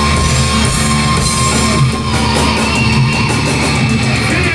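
A thrash/death metal band playing live, full band with heavy electric guitars. The drums and cymbals get busier about halfway through.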